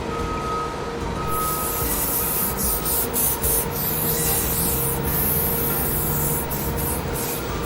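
A steady hissing, spraying noise that comes in strongly about a second in, with a few brief dropouts, over a low hum.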